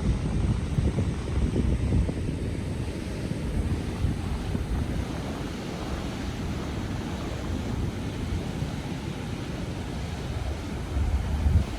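Wind buffeting the microphone over steady surf breaking on the beach, with stronger gusts in the first couple of seconds and again just before the end.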